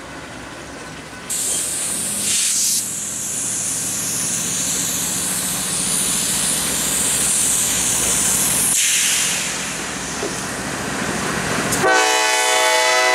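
Norfolk Southern GE wide-cab diesel locomotives approach with their engines running under a steady hiss. Near the end the lead unit's air horn sounds one loud chord.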